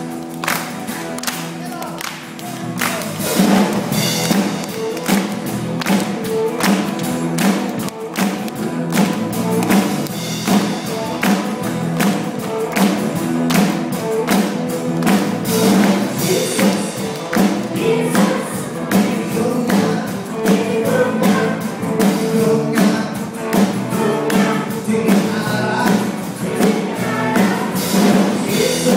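Live Christian worship band playing a song: drums keep a steady beat under bass and guitars, and singing comes in about three and a half seconds in.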